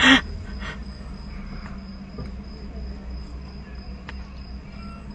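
Steady low hum inside a car's cabin with a faint, steady high-pitched whine, after a brief voice sound at the very start.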